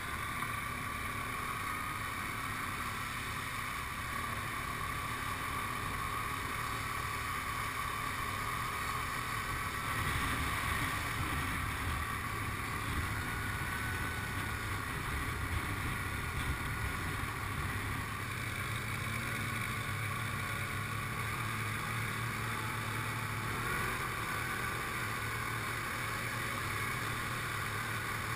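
ATV engine running steadily under way along a flooded mud track, with tyres churning and splashing through water.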